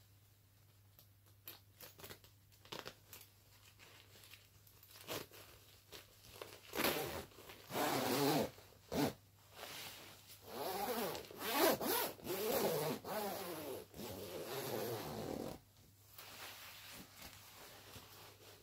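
The long front zip of a shiny nylon down coat being done up: a few small clicks and rustles as the ends are fitted together at the hem, then from about seven seconds in the slider is pulled up in several drawn-out rasping strokes over about nine seconds.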